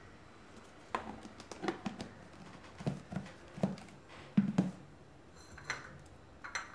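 Plastic food container being handled at a kitchen counter: light clicks as its lid comes off and is set down, and a run of soft knocks as things are moved and put down.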